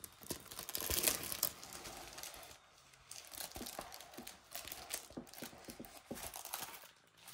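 Plastic crinkling and rustling as it is handled, with many small crackles; loudest about a second in, then lighter and intermittent.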